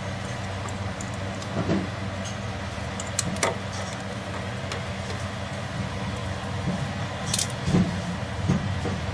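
Small metal clicks and taps of pliers working the legs of a steel cotter pin through a ball-joint castle nut, a few scattered strikes over a steady low hum.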